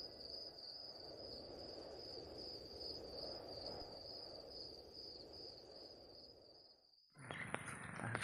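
Faint, steady, high insect trill over a soft hiss. It cuts off abruptly about seven seconds in, and a few light clicks follow.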